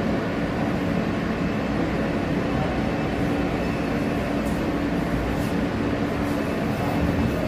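Steady rumble with a low hum from an R160-series New York City subway train.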